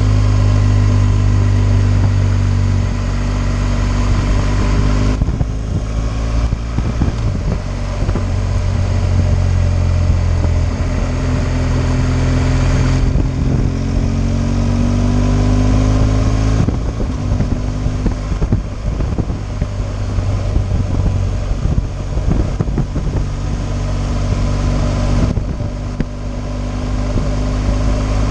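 BMW R 1200 GS motorcycle's boxer twin engine running on the road, its pitch rising and falling several times as the rider works the throttle. Steady wind rush runs under it.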